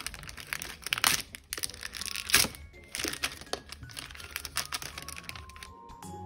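Clear plastic packaging bag crinkling and crackling as hands press and pull at it, in irregular crackles, the loudest about two and a half seconds in.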